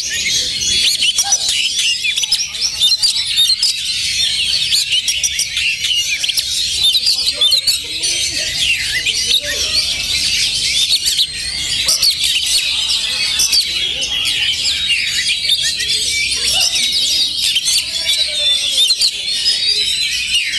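Dense chorus of many caged oriental magpie-robins singing at once: fast, overlapping whistles and chirps with no pause.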